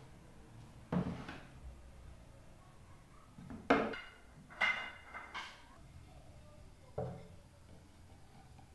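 Cookware being handled: a dull knock about a second in, then a sharp metallic clink with a short ring near four seconds as a frying pan is worked on the stove, two lighter clinks right after, and another knock about seven seconds in.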